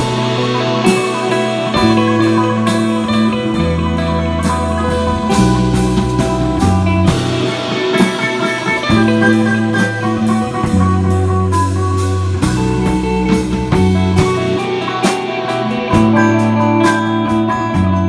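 Live instrumental rock improvisation: electric bass holding long low notes that change every second or two, a drum kit keeping a steady beat, with electric guitar and a cigar box guitar playing over it.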